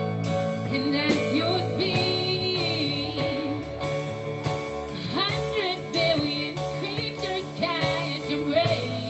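A song: a solo voice singing with vibrato over sustained instrumental chords.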